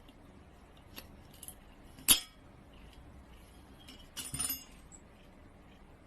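A few light clinks and taps: one sharper clink about two seconds in, and a short flurry of them a little after four seconds.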